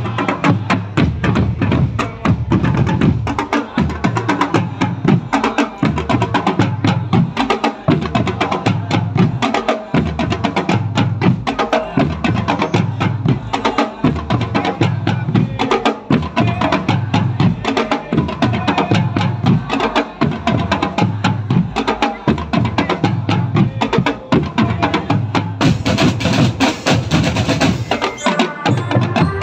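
Marching drum band playing: snare drums, multi-tenor drums and bass drums beating a dense, continuous rhythm together, with a recurring deep pulse from the bass drums.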